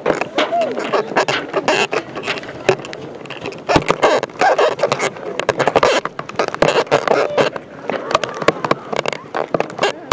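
Voices of a crowd in costume calling out, the pitch wavering and rising. Dense, irregular crackling and scraping close to the microphone runs under them.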